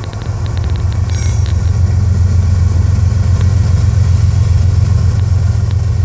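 Diesel locomotive engine running at a steady idle with a deep, even rumble; a few light clicks and a short higher tone come about a second in.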